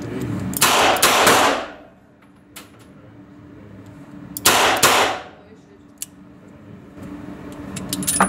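Enfield No.2 Mk.1 revolver firing .380/200 rounds: two quick pairs of shots about four seconds apart, each ringing off the walls of an indoor range. Near the end come small metallic clicks as the top-break revolver is opened.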